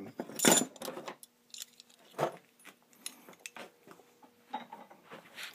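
Light metal clinks and clicks of handling: rubber oil-cooler hoses and their steel clamp being moved about on a wooden workbench, with the loudest clatter about half a second in and another at about two seconds.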